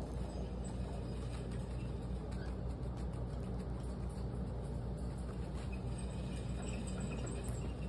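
A guinea pig chewing celery, with faint crunching clicks now and then over a steady low hum.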